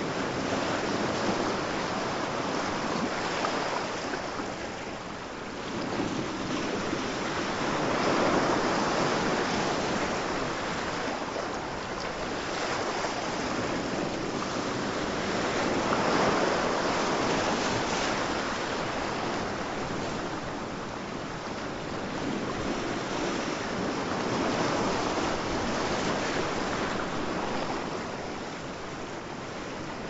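Ocean waves breaking on a shore, the surf swelling and falling back about every eight seconds.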